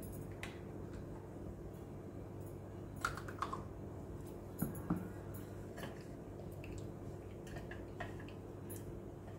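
Metal spoon scooping thick pizza sauce from a bottle and spreading it over a pizza base on a steel plate: scattered soft clicks and wet squelches, a few sharper taps about three and five seconds in, over a faint steady hum.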